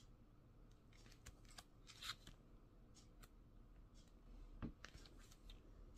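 Faint rustling and light clicking of sheets in a pad of scrapbooking paper being handled and turned, with a soft thump a little over halfway through.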